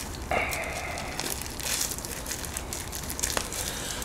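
Thin disposable plastic gloves crinkling and rustling as they are pulled snug onto the hands, with scattered small crackles.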